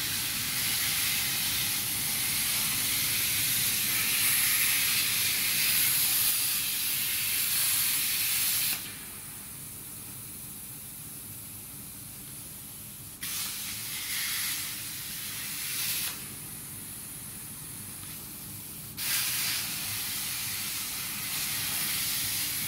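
CNC plasma cutter's torch cutting steel plate: a loud, steady hiss of the plasma arc. It cuts out after about nine seconds as the arc switches off between cuts, comes back for about three seconds, cuts out again, and returns for the last few seconds.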